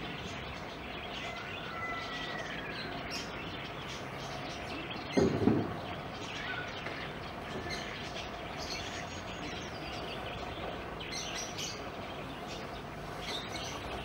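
Birds chirping and calling now and then over steady outdoor background noise, with one short, louder low sound about five seconds in.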